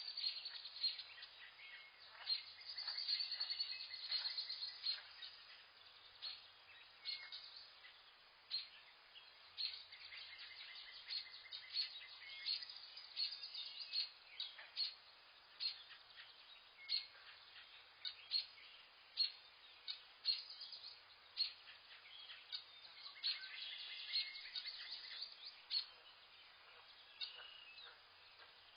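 Forest birds chirping and calling, a steady stream of short high-pitched chirps and trills over a faint background hiss.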